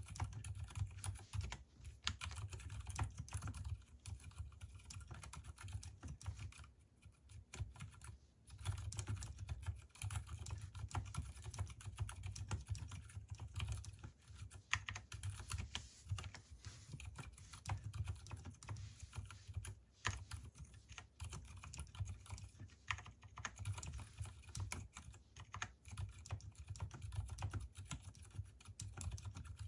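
Continuous fast typing on a mechanical keyboard with Gateron Silent Brown switches, left unlubricated, and lubed stabilizers. The keystrokes come in a dense stream with a brief lull about seven seconds in.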